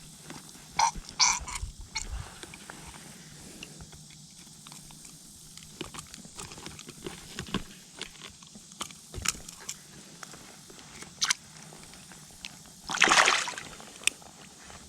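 Creek water splashing and sloshing around a wading angler, with scattered clicks and rustles of handling. The loudest splash comes about thirteen seconds in.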